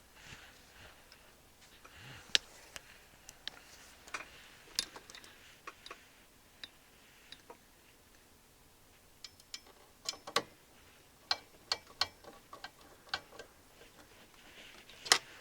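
Irregular light clicks and taps of metal parts and hand tools as the amplifier module is fitted back into a receiver's chassis, coming more thickly about ten seconds in.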